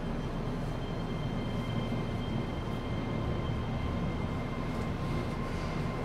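Keihan limited express train standing at an underground platform: a steady low rumble and hum of its running equipment, with faint steady high whining tones over it.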